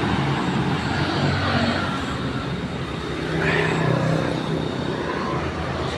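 Small petrol engine running steadily at a constant speed, the engine that drives the snow-foam wash machine's air compressor, fitted with a Honda GX160 carburettor.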